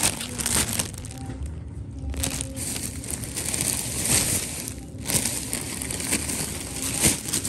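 Clear plastic bags holding folded clothes crinkling and rustling as they are handled, in irregular bursts.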